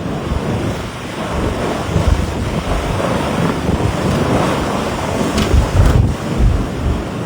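Strong wind gusting across the microphone: a steady rushing with heavy, uneven buffeting that builds, its strongest gusts about five to six seconds in.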